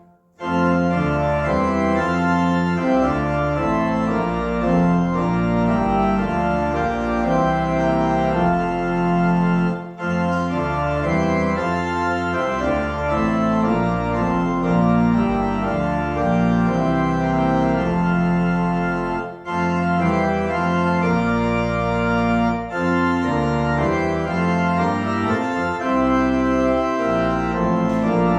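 Church organ playing the closing postlude: sustained chords that keep changing, with brief breaks about ten and nineteen seconds in.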